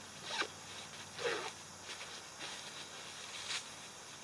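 Three brief, faint rustles of a fabric stuff sack being handled, with the packed bed-net shelter inside it.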